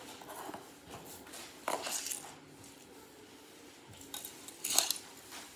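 Small objects being handled: short bursts of rustling and clinking, about two seconds in and again near the end.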